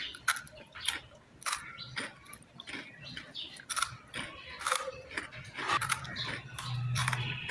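Close-up eating: crisp crunches of biting into and chewing crunchy food, irregular, about two a second.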